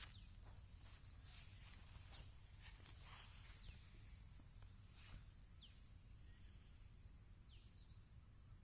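Faint outdoor field ambience: a steady high insect drone with a few short falling bird calls about every two seconds, and light footsteps on dry soil during the first few seconds.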